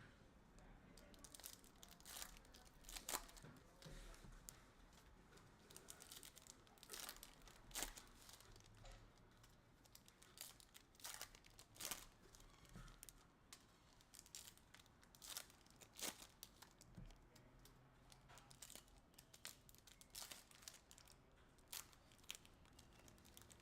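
Hockey card pack wrappers being torn open and crinkled by hand, a string of short, sharp rustles and crackles.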